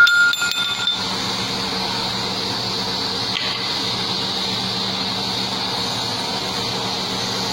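A sharp metallic clink as metal parts of the RO pressure vessel strike together, ringing for about a second. After it, a steady machinery hum continues.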